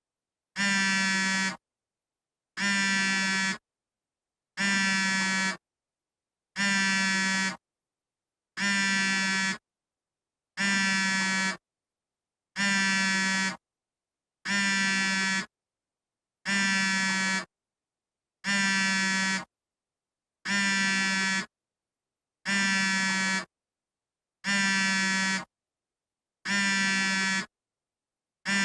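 iPhone vibrating for an incoming call: a steady buzz of about a second, repeating every two seconds with silence between.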